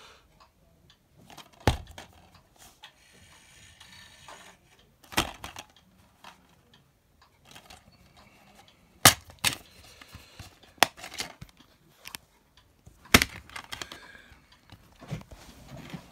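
A plastic DVD case being handled and turned over: a string of sharp clicks and knocks, about six in all, with faint rustling between them.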